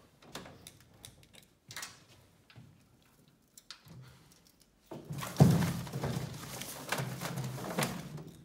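Ballot box being opened and rummaged: a few light knocks and taps as the lid is lifted, then about five seconds in a sudden thump followed by a few seconds of hollow rustling and rummaging as a hand stirs the entry cards inside the box.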